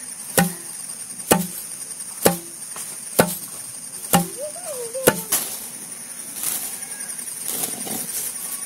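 A pestle pounding paddy in a stone mortar to husk it: six strikes about one a second, stopping about five seconds in. Insects chirr steadily and high in the background.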